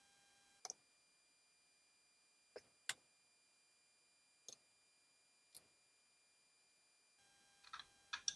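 Faint, sharp clicks of a metal case knife working at the case back of a pocket watch, about seven scattered irregularly across several seconds, with near silence between them.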